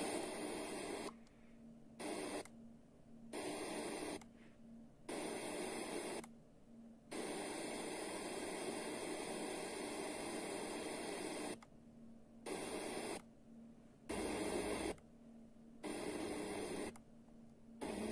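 FM radio static hiss from a Sony DAV-560 receiver's tuner as it steps up the band between stations. The hiss cuts in and out about nine times: mostly bursts of a second or so, with one longer stretch of about four seconds in the middle, each broken off by a brief muted gap.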